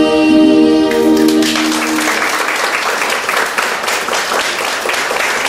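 A girl's singing ends on a long held final note, with the musical accompaniment stopping about two seconds in. Audience applause breaks out about a second in and carries on as a dense, steady clapping.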